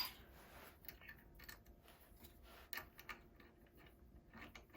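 Near silence in a small shop, with a sharp click at the very start and a few faint scattered clicks and light taps after it.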